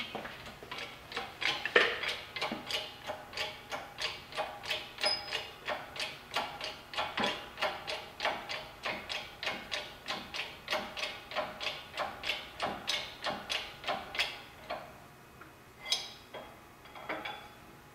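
Shop press being worked to press a plug into the NP241 transfer case's helical gear assembly: a steady run of sharp metallic clicks, about three a second, that stops about 15 s in, followed by two louder single clicks.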